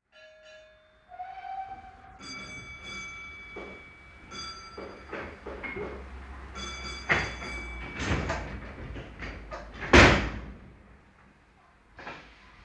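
Steam railway sound effects: a short whistle note, then a slightly higher one, then repeated steady high-pitched squealing tones. A series of bangs like heavy carriage doors slamming follows, the loudest about ten seconds in.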